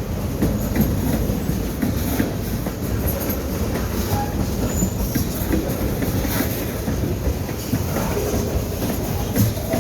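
Train cars rolling slowly past at about 10 mph, wheels clicking over the rail joints over a steady rumble, with a few brief faint squeals. The train is running slowly because of a bad bearing.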